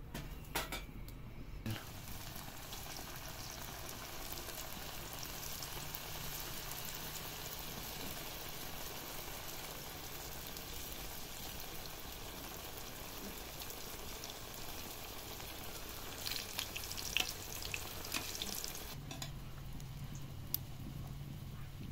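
Food frying in hot oil: a steady sizzle that starts abruptly about two seconds in and stops abruptly near the end, with a few sharp clicks shortly before it stops.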